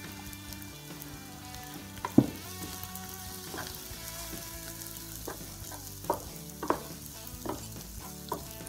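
Raw rice sizzling in butter and oil in a nonstick frying pan as it is stirred through softened onion and garlic with a wooden spatula, toasting so the grains soak up the fat. The spatula scrapes and taps against the pan several times, loudest about two seconds in.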